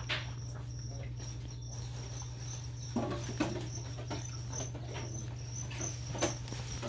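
Crickets chirping in a steady, high pulsing trill over a low steady hum, with a few soft knocks.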